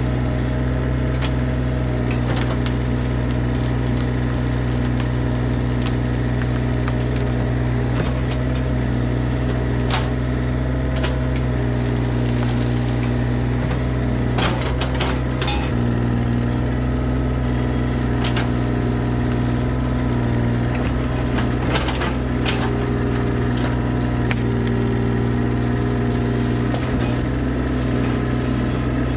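Hitachi mini excavator's diesel engine running steadily under load while the bucket pushes and digs at a poplar tree's trunk and roots. Scattered sharp cracks and knocks of wood and roots breaking come through, most of them in the middle.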